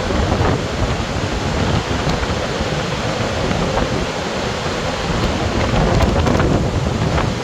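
A large waterfall, Augrabies Falls on the Orange River, in flood: a loud, steady roar of falling water with a rumbling low end.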